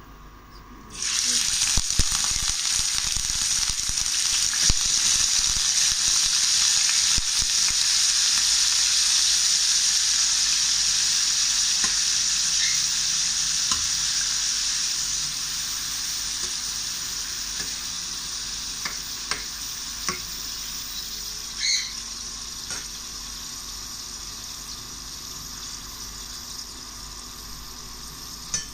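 Raw shrimp tipped into hot oil in a stainless steel frying pan: loud sizzling starts suddenly about a second in, then slowly dies down as they cook. A metal spatula clinks and scrapes against the pan now and then.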